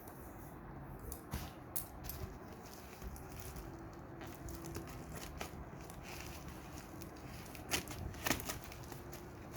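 Lamps and their plastic packaging being handled: scattered light clicks and crinkling, with a few sharper clicks about eight seconds in.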